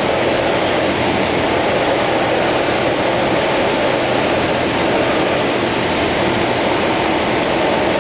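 Cessna 172's piston engine and propeller running with a steady drone, mixed with airflow rushing past the airframe, as heard inside the cockpit on final approach.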